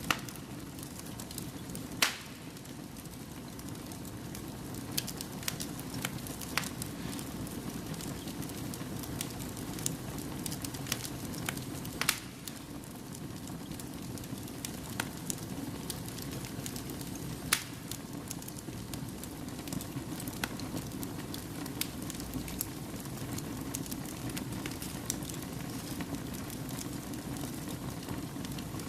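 Fire burning in a fireplace: a steady rushing flame sound with constant crackling and a few sharp, louder pops, about 2, 12 and 17 seconds in.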